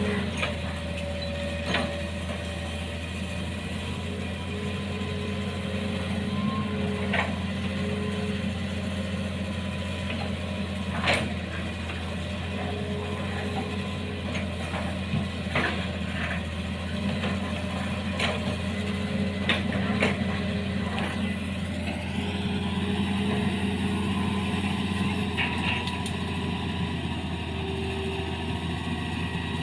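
Excavator's diesel engine running steadily under work, with scattered sharp knocks and brief squealing tones from the machine as it digs.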